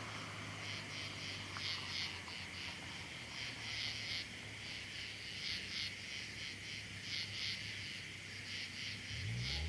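VW Jetta's VR6 engine with Flowmaster exhaust idling with a low steady hum, while crickets chirp in repeated pulses over it. Near the end the engine starts to rev up.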